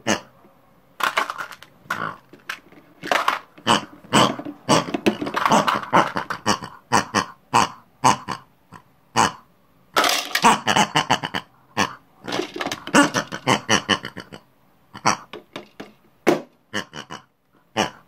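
A person's voice making ugly pig noises in short, irregular bursts, voicing the toy pigs. Around ten seconds in, Tic Tac mints rattle as they are poured into a toy washing machine drum.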